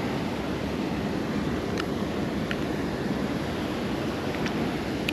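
Steady rush of water pouring over a lake spillway, with a few faint short high ticks.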